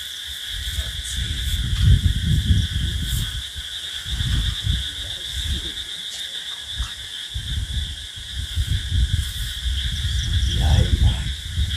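Steady, high-pitched chirring of crickets in a night-time insect chorus, over uneven low rumbles of wind buffeting the microphone.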